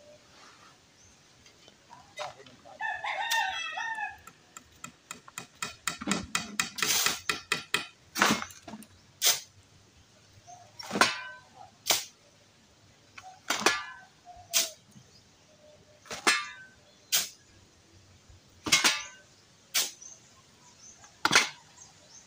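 A rooster crows once, about three seconds in. Then comes a quick run of clicks, followed by short, loud scraping strikes in pairs, about every two and a half seconds, typical of a shovel turning a batch of concrete mix.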